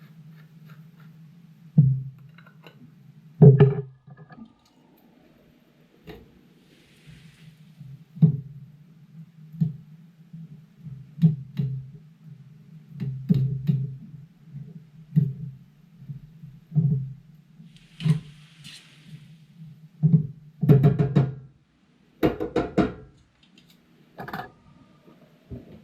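A metal utensil knocking against a frying pan of cabbage, about fifteen irregular sharp knocks, some ringing briefly, over a steady low hum.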